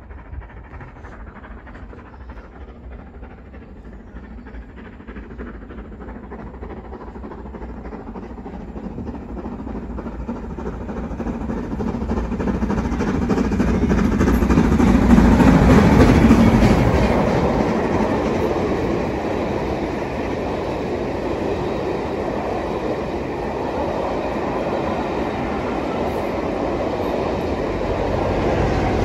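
LMS Black Five 4-6-0 steam locomotive working hard under power, its exhaust beats growing steadily louder as it approaches and loudest about halfway through as it passes. The train then stays loud as the coaches roll by, with wheel clatter on the rails.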